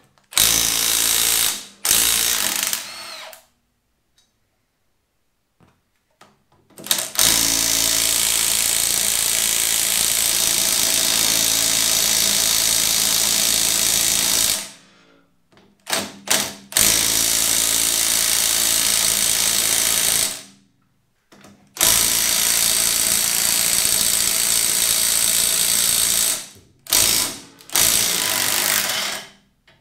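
Handheld power tool run in repeated bursts, the longest about seven seconds, used on a mower's drive shaft assembly as it is taken apart.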